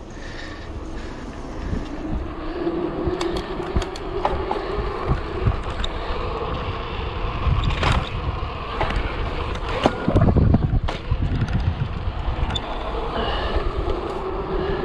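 Gios FRX downhill mountain bike rolling fast down an asphalt street: tyre roar and wind on the microphone, with frequent rattling clicks from the bike over bumps and a loud low rumble about ten seconds in.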